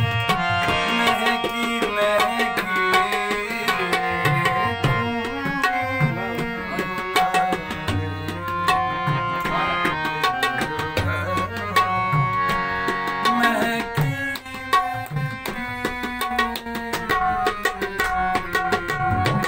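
Harmonium playing a melody over a tabla rhythm, with deep bass strokes from the bayan, in an instrumental passage with no singing.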